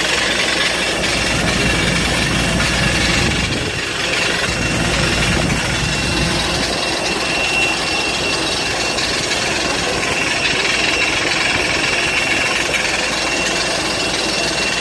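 Steady cabin noise inside a parked Airbus A320: the air-conditioning rushes evenly under a thin, steady high whine, with a low rumble a little stronger over the first few seconds.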